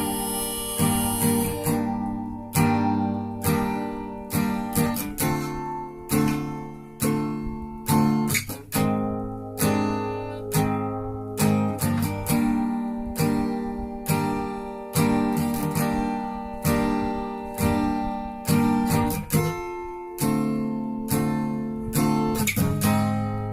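Acoustic guitar strummed in a steady rhythm through the instrumental outro of a song. A harmonica line runs on for the first second or two and then stops.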